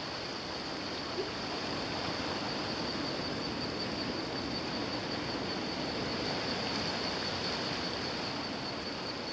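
Steady rushing wash of sea surf breaking on a rocky shore.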